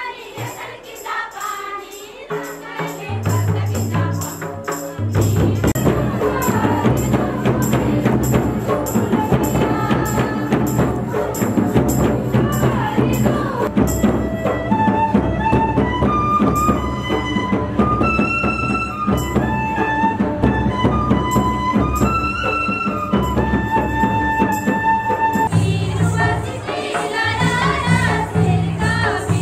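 Jharkhandi tribal folk dance music: mandar and nagara drums keep a steady beat under a jingling percussion, with voices singing a melody in long held notes through the middle.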